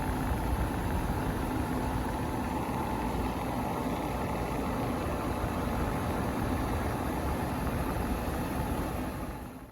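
Window air conditioner running: a steady hum of fan and compressor noise that fades out near the end.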